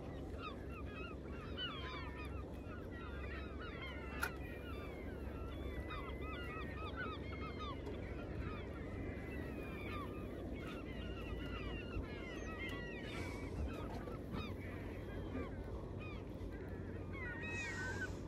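A feeding flock of seagulls calling, many short squawks overlapping without a break, over a steady low rumble of water and wind.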